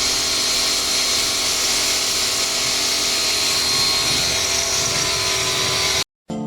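Loud, steady running of a motor-driven machine, a whining hum with a strong hiss over it, which stops abruptly near the end.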